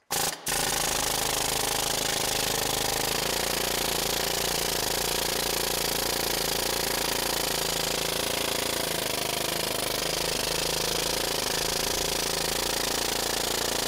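Pneumatic needle scaler, its air hammer driving the steel needles against the rusty, greasy side of a Caterpillar 3406 diesel engine block to knock off rust and old grease. After a short first burst and a brief pause, it runs continuously and loud as hell, like shooting a machine gun.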